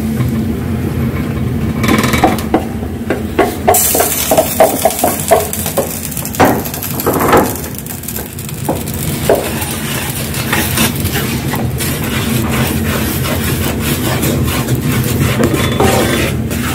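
Ground egusi melon seed tipped into hot oil in a pot, sizzling, while a wooden spatula knocks against the pot and scrapes through the mixture. A steady low hum runs underneath.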